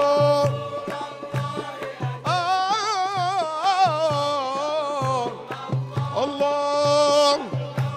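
Male munshid singing long, ornamented held notes with heavy vibrato in three drawn-out phrases, over a steady hand-drum beat of about three strokes a second in Middle Eastern devotional style.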